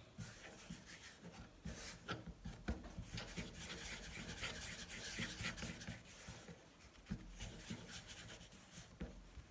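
Hands rolling and pressing a soft ball of jam-filled bread dough on a wooden cutting board: faint rubbing and brushing, busiest from about three to six seconds in, with a few soft taps.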